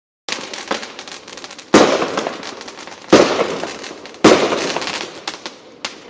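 Fireworks going off: small sharp pops, then three loud bangs about a second and a bit apart, each trailing off in crackling, and a last sharp pop near the end.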